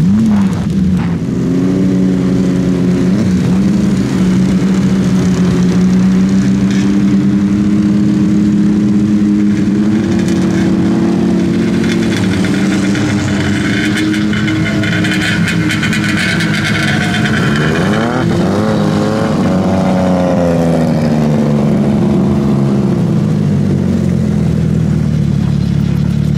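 Snowmobile engine running at a steady pitch. About two-thirds of the way through it is revved, rising and then falling back.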